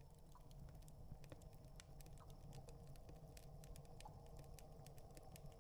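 Faint background ambience: a low steady rumble with irregular soft crackles and clicks scattered through it.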